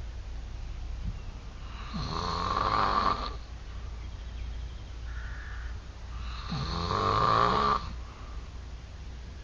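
A man snoring loudly: two long snores about four seconds apart, each swelling in loudness and then cutting off suddenly.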